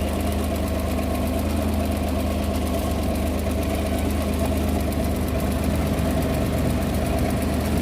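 Maruti 800's carburettor three-cylinder petrol engine idling steadily.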